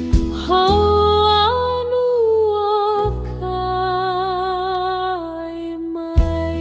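Gentle ukulele background music: a soft voice holds long, slightly wavering notes without words over plucked chords and a steady bass.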